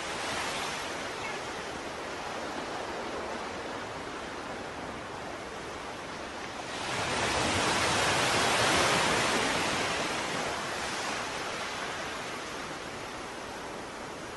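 Ocean surf washing steadily, with one wave swelling louder about halfway through and then fading back.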